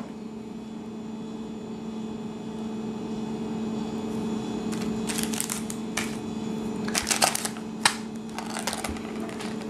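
Scattered light clicks and rattles of fishing lures and a hooked wire weedless guard being handled and set down in a hard plastic tackle box, in short bunches from about halfway in, over a steady low hum.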